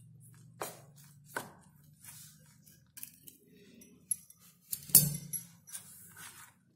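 Steel spoon clinking and scraping against a stainless steel bowl while stirring semolina and hot milk into a crumbly dough, in irregular strokes, with a louder clatter about five seconds in.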